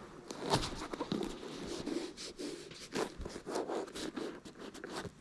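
Handling noise: irregular scraping, rubbing and light clicks as things are moved about.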